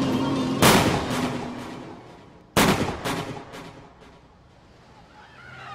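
Two loud pistol shots about two seconds apart, each ringing out in a long echoing tail, with a quieter third shot just after the second.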